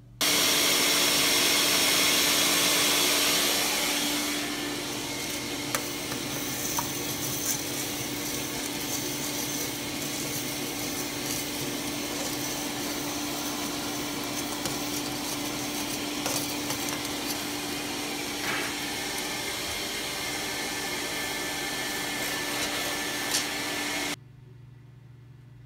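Vacuum cleaner running, sucking soot and scale out of a boiler's combustion chamber during cleaning. It switches on abruptly, is loudest for the first few seconds, then runs a little lower with a faint steady hum and occasional clicks, and shuts off suddenly near the end.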